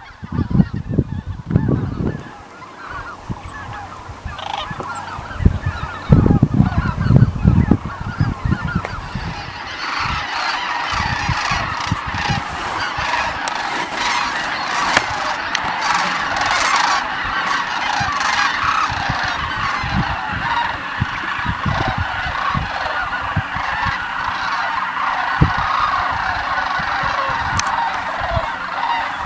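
A huge flock of geese taking flight, calling continuously in a dense honking clamour that swells about ten seconds in and then holds. Heavy low rumbling bursts come in the first eight seconds.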